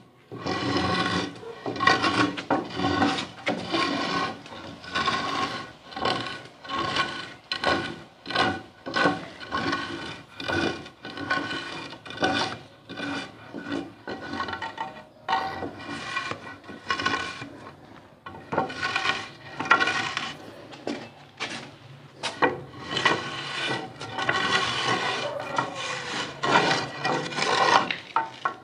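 A mason's straightedge scraped in repeated strokes over fresh cement render on a wall, cutting off the excess so the patch lies flush with the old plaster. Gritty rasping strokes, about one or two a second, with a few short pauses.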